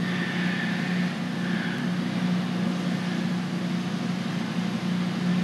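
A steady low-pitched hum with a faint hiss above it.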